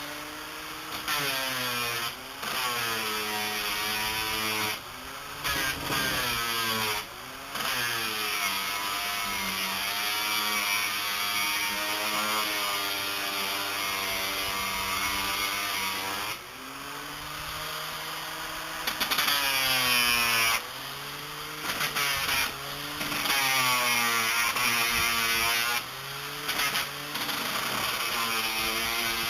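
A 7-inch high-speed grinder's disc running against wood, a steady grinding hiss over a motor whose pitch sags as the disc is pressed in and climbs back as the load eases. It drops away briefly several times.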